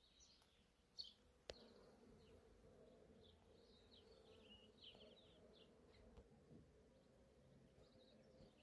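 Near silence: faint outdoor ambience with small birds chirping now and then and a faint steady hum, broken by one soft click about a second and a half in.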